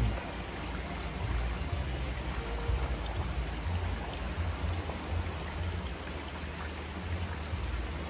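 Mountain stream water running steadily over rocks, with a low, uneven rumble underneath.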